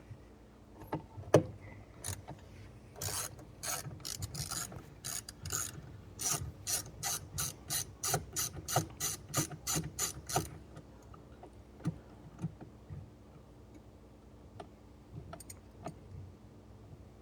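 Ratchet wrench with a 7 mm socket backing out a trim-panel bolt: a sharp knock, then a long run of quick ratchet clicks, about three a second, followed by a few scattered clicks.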